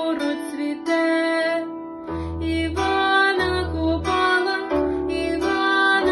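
A plucked string instrument playing a melody over deep bass notes that come and go.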